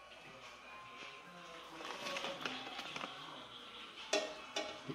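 Faint background music, with two light knocks near the end as fingers reach into an aluminium pot of water.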